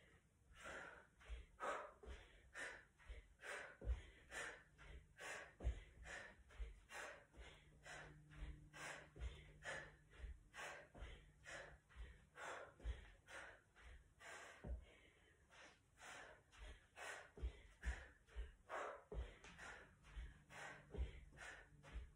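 A person's hard, rhythmic breathing during a bodyweight workout: quick breaths about twice a second, with soft thuds of bare feet landing on a rug.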